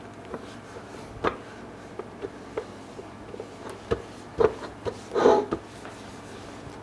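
Scattered light taps and knocks of hands handling things, with a short crinkling rustle about five seconds in, over a steady low hum.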